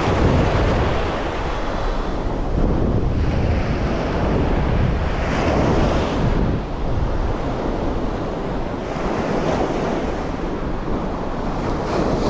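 Ocean surf breaking and washing up the sand close by, the rush swelling and easing every few seconds, with wind buffeting the microphone.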